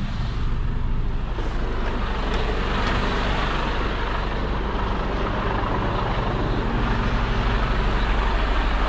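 Heavy truck's diesel engine running steadily, a low hum.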